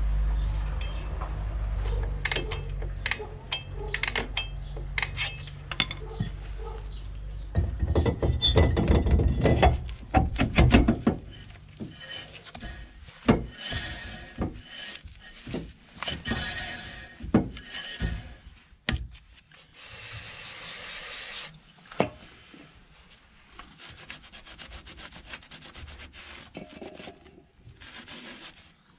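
Metal clinks and knocks, then hand scraping and scrubbing of the rusty rear brake drum and hub of a Ford Transit MK6, in repeated rubbing strokes, loudest about eight to eleven seconds in. A short hiss comes about twenty seconds in.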